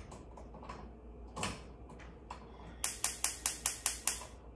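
Gas stove's spark igniter clicking rapidly, about five sharp clicks a second for over a second as a burner knob is turned to light it. A single knock comes a little before.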